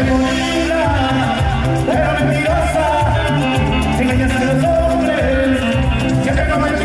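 Latin American dance music with a steady bass beat and a wavering melody line.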